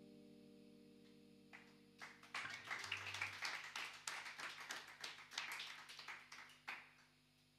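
The last electric guitar chord dies away, then about two seconds in brief applause starts and runs for about five seconds before stopping.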